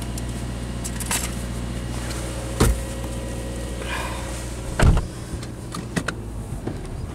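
Subaru Legacy engine idling with a steady low hum, heard from inside the cabin, broken by two sharp knocks about two and a half and five seconds in and a few lighter clicks.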